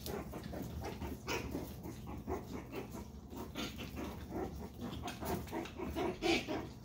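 7.5-week-old Chihuahua puppies making a rapid string of short, high play noises as they wrestle, loudest near the end.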